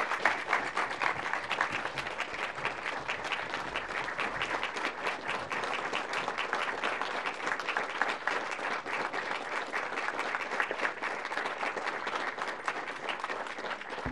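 Audience applauding: steady, continuous clapping from many hands.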